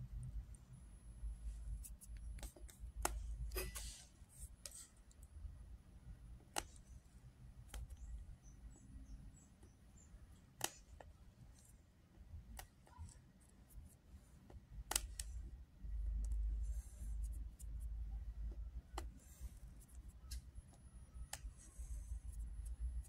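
Fingernails clicking sharply against a hard surface as lice are crushed between them, in irregular single clicks a second or several apart, over a low rumble.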